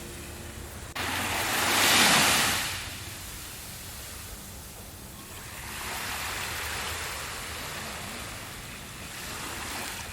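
Ocean surf: a wave breaks loudly about two seconds in, and two softer waves wash in later.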